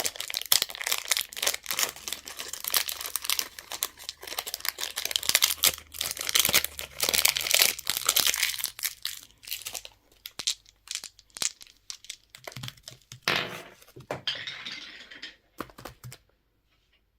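Candy wrappers crinkling and tearing as packaging is unwrapped by hand: dense crackling for about the first ten seconds, then sparser rustles that stop near the end.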